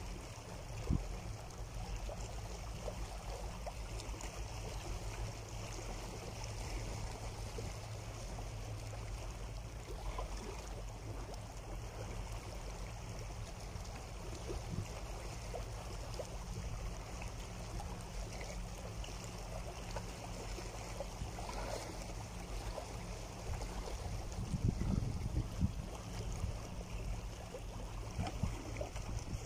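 Small sea waves washing over and lapping around shoreline rocks, water sloshing and trickling back off them, with a few louder splashes near the end.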